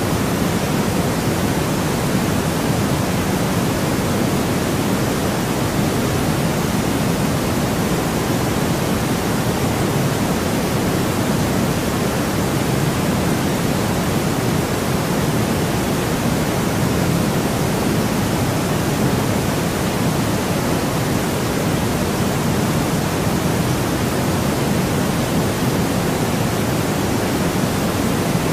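Steady, unchanging white noise, a continuous hiss with most of its weight low in the range and a softer hiss above.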